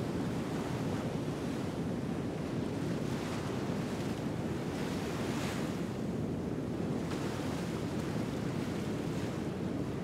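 Ocean surf washing ashore, a steady rush of waves with a brighter, hissier wave breaking about halfway through.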